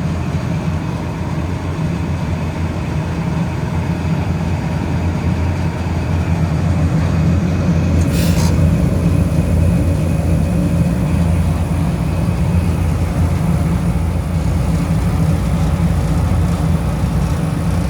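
Steady low machine hum of running refrigeration equipment, with a short hiss about eight seconds in.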